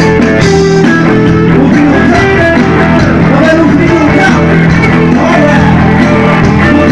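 Rock band playing loud and live: amplified electric guitar and bass over drums.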